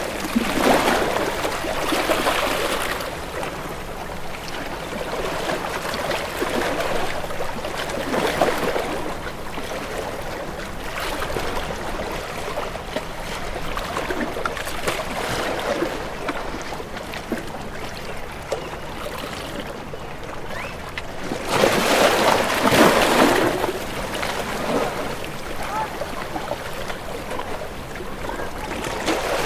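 Water washing and splashing, a continuous hiss that swells in surges every several seconds, the loudest surge a little past twenty seconds in.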